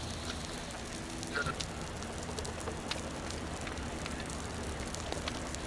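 Brush and debris fire crackling and popping with scattered sharp snaps over a steady rushing hiss, and a low hum underneath.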